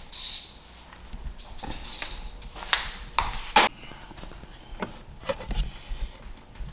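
Metal parts and fittings in a car's engine bay being handled: several sharp clicks and knocks, the loudest about halfway through.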